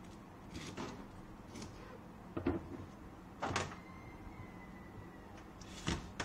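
A kitchen knife knocking on a cutting board and a metal bowl clinking as alugbati (Malabar spinach) is cut and handled: a handful of separate knocks, the loudest about two and a half, three and a half and six seconds in.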